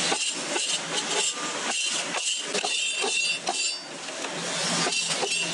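Hand-lever metal shear cutting and handling blanks of old saw-blade steel: a run of irregular sharp metal clanks and clinks, several a second, over a steady hiss.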